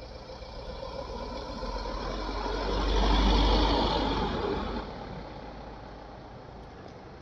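Vehicle noise while riding a two-wheeler on a hill road: engine and road noise with a low rumble, swelling to its loudest about three seconds in and easing off by about five seconds.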